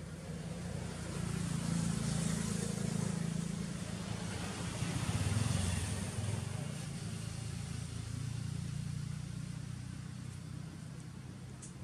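Low engine noise of passing road traffic, swelling twice, about two seconds in and again around five seconds in, then settling to a steady hum.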